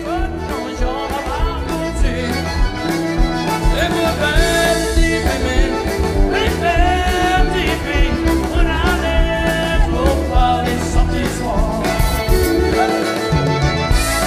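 Background music with a steady beat and a melody over it.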